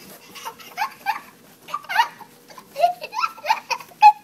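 A toddler giggling and squealing in a quick string of short, high-pitched bursts that come thicker toward the end.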